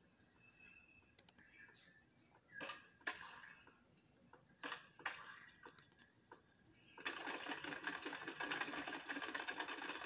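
Cartoon soundtrack heard off a TV's speaker: a few short sound effects, then from about seven seconds in a much louder, dense sound that carries on.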